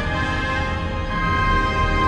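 Full symphony orchestra playing held chords that move to new notes a couple of times.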